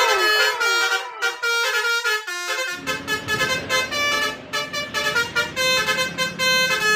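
Telolet bus horn playing a quick multi-note tune, the notes changing several times a second. A low steady rumble joins beneath it about three seconds in.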